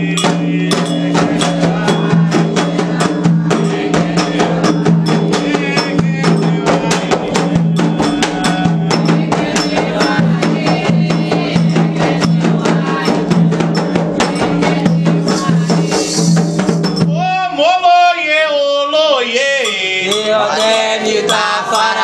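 Candomblé ritual drumming: hand drums and percussion playing a fast, dense rhythm. A voice enters near the end singing a wavering, melismatic line over the drums.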